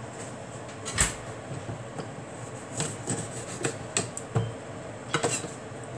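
Scattered light knocks and clicks with some rubbing as kitchen utensils are handled, about six in all, the loudest about a second in.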